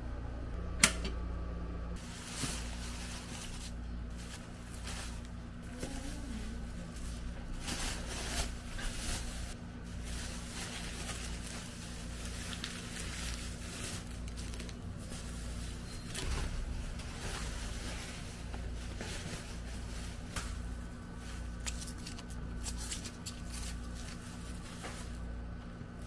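A sharp click about a second in, then plastic grocery bags rustling and crinkling as fruit is taken out and handled on a wooden table, in a run of irregular crackles and light knocks.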